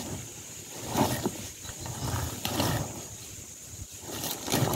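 Komodo dragon swallowing a wild pig carcass head-first: irregular low, rough surges of gulping and scraping as it heaves the body down its throat, with a few sharper bursts.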